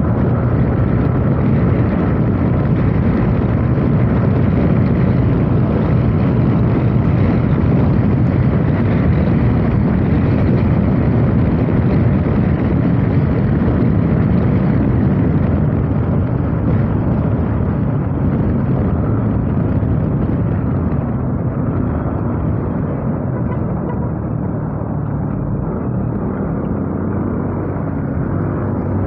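Motorcycle on the move: steady engine hum mixed with wind and road noise, picked up by an earphone microphone. From about two-thirds of the way through it turns slightly quieter and duller.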